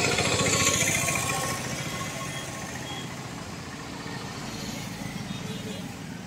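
A three-wheeled auto-rickshaw passes close by, its engine and tyre noise loudest in the first second or two and then fading as it goes. Lighter engine and road noise from motorcycles passing further off follows.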